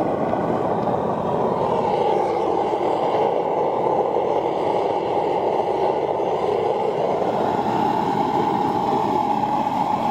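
Gas burner firing steadily into a small furnace to heat the investment mold and burn out the PLA, a continuous rushing noise.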